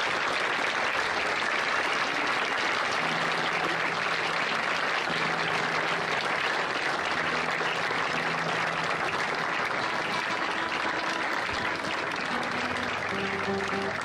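Background music: a few held low notes over a dense, steady hiss.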